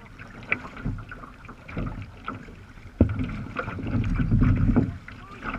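Water splashing and lapping against a sea kayak's hull as it moves through light chop, with wind rumbling on the microphone; the splashing swells into a heavier, longer surge about three seconds in.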